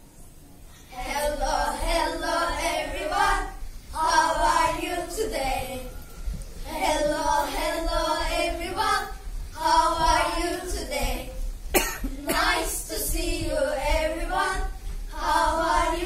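A group of children singing together in phrases of two to three seconds with short breaks between them. A single sharp click comes about twelve seconds in.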